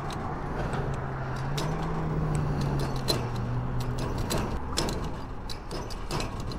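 Gas pump dispensing fuel into a motorcycle tank: a steady pump hum under the rush of gasoline flowing through the nozzle, the hum stopping about four seconds in as the tank nears full. Repeated sharp clicks from the nozzle handle run through, thickest near the end during topping off.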